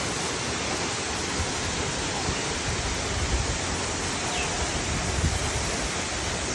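Waterfall: the steady rush of falling water, with a low rumble that swells and fades.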